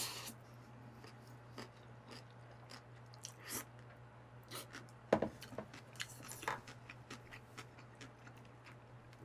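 Close-miked chewing of a mouthful of cold spicy mixed noodles: soft wet mouth clicks and smacks, with a few louder bites or swallows, over a faint steady low hum.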